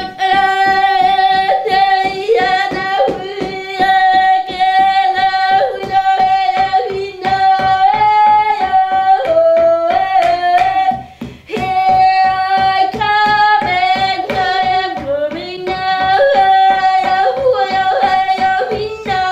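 A woman singing in long held notes while beating a steady rhythm on a hand frame drum, about two to three beats a second, with a brief pause in the singing about eleven seconds in.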